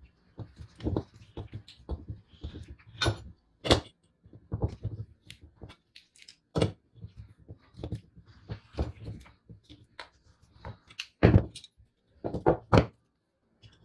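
Irregular clicks, taps and knocks of a screwdriver and small metal parts against a painted vintage balance-scale base as it is reassembled by hand and handled on a wooden table, with a few louder knocks near the end as the base is picked up and turned over.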